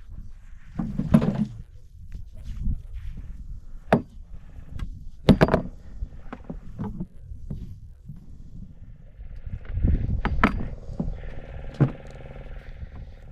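Irregular knocks and thuds on a boat over a low rumble; a steady hum joins near the end.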